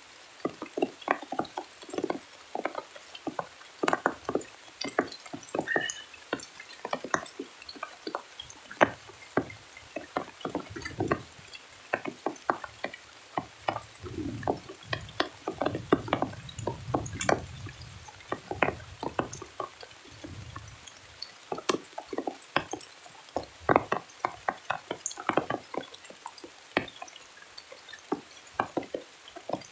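Rain falling on a tent, heard as dense, irregular drips and taps, several a second. A low rumble comes in about halfway through and fades after a few seconds.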